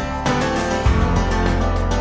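Background music with a steady beat; a deeper bass part comes in about a second in.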